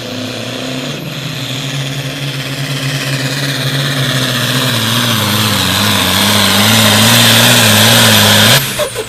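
Diesel engine of a pulling tractor at full throttle, dragging a weight-transfer sled. Its steady note grows louder as it comes nearer and wavers in pitch in the second half. The sound cuts off suddenly near the end.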